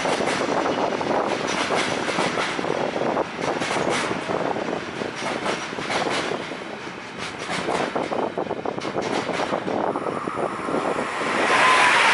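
Intermodal freight train of semi-trailers on pocket wagons rolling past, its wheels knocking irregularly over rail joints. Near the end it gives way to the louder, steady rush of another train approaching, with a thin whine.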